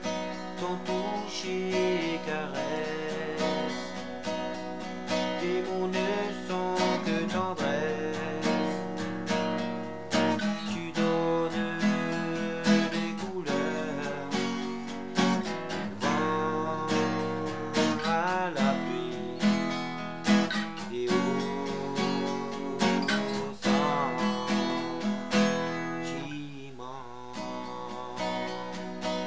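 Acoustic guitar strumming and picking through an instrumental passage of a song, with no singing.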